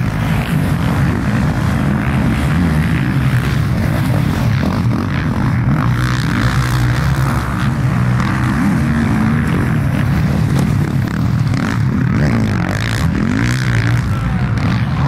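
Several 450cc four-stroke motocross bikes running hard on the track, engines revving up and down as they accelerate, brake and change gear. Their pitch rises and falls in overlapping glides near the end.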